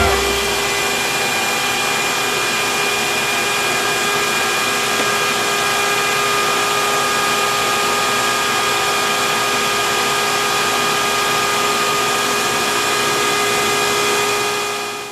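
Vacuum cleaner running steadily with a constant motor whine as it is used to groom a long-haired cat's fur; the sound dies away near the end.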